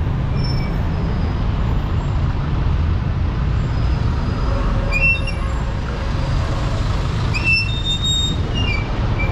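City street traffic: motor vehicle engines, including motorcycle tricycles, running and passing close by as a steady low rumble. A few brief high-pitched tones come about five seconds in and again near the end.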